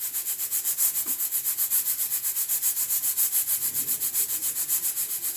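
Hawkins pressure cooker venting steam past its pressure regulator in a hiss that pulses rapidly and evenly, with no clear whistle tone.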